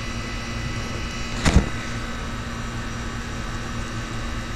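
Steady low mechanical hum with several fixed tones, and a single sharp knock about one and a half seconds in.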